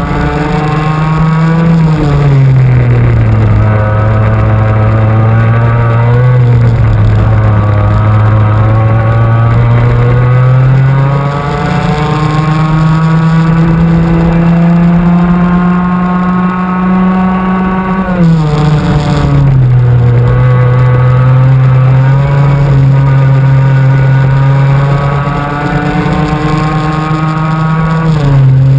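Two-stroke kart engine recorded onboard at racing speed, its note climbing steadily on the straights and dropping sharply as the driver lifts off for corners, about two seconds in, around eighteen seconds in, and near the end.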